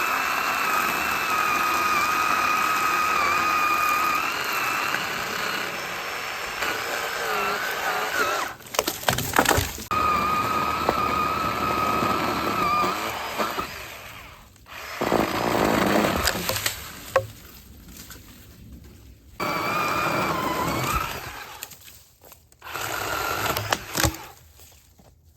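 Craftsman 10-inch battery chainsaw cutting pine, its electric motor giving a high steady whine that wavers as the chain bites into the wood. It stops and starts several times, with a few sharp knocks about a third of the way in.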